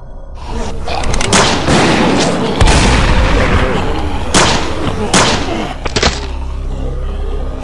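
A string of sound-effect gunshots, about half a dozen sharp shots with a heavier boom about two and a half seconds in, mixed with people shouting and screaming.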